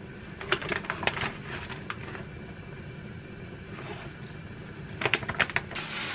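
Plastic packaging crackling and rustling as a packet of dried kelp (dashima) is handled, in short bursts of clicks about a second in and again around five seconds in, over a steady low rumble. Near the end a plastic bag starts crinkling continuously.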